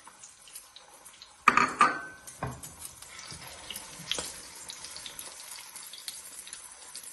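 Egg-dipped potato patties (aloo tikki) shallow-frying in a little hot oil in a nonstick frying pan, with a steady crackling sizzle. A sudden loud burst comes about a second and a half in, and a knock follows a second later.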